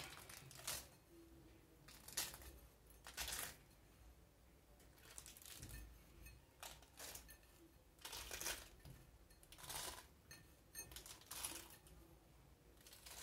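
Faint, brief rustles and light clicks, about one every second: fingers picking chopped almonds out of a small glass bowl and scattering them onto glazed brioche buns on a parchment-lined baking tray.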